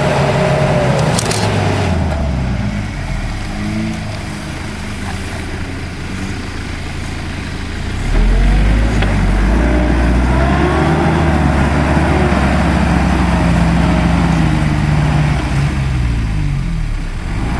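Engine of an off-road 4x4 SUV revving and labouring, its pitch rising and falling with the throttle, with a couple of sharp cracks about a second in. It gets louder about eight seconds in as the vehicle comes close.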